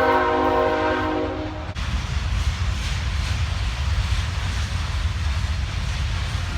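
Train horn sounding a steady multi-note chord that cuts off about a second and a half in, followed by the steady low rumble of the train passing.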